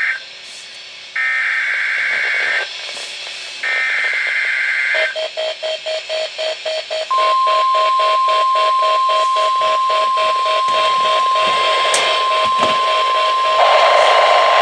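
NOAA Weather Radio weekly test of the Specific Area Message Encoding and tone alert systems. The buzzy data bursts of the SAME digital header, each about a second long with short gaps, are followed by rapid pulsing beeps at about four a second. Then the steady 1050 Hz weather-alert tone starts about seven seconds in and holds, with hiss rising under it near the end.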